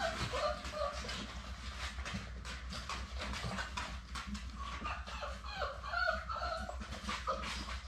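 Young Labrador retriever puppies whimpering and squeaking in short high calls, near the start and again from about five seconds in, over a patter of small clicks.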